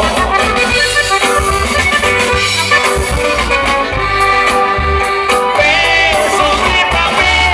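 Norteño music: an accordion playing a melody over a steady pulsing bass line.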